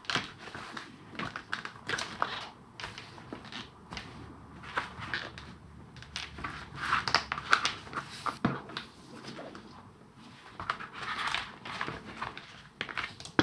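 Fountain pens being slid into the slots of a zippered leather pen case and adjusted by hand: irregular small clicks, taps and rustling of leather and pen barrels.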